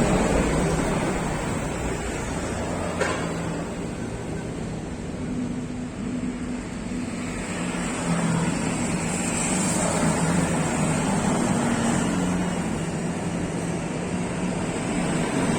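Steady vehicle noise: a low engine hum that wavers in pitch over a constant rushing background.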